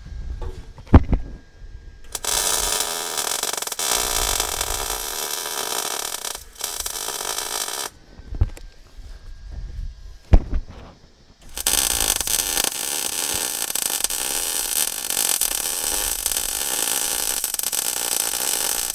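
Electric welder laying two welds on the steel steering-box mounting bracket, each a steady, loud hissing noise that starts and stops abruptly, the first about six seconds long and the second running on near the end. A sharp knock comes about a second in and again just before the second weld.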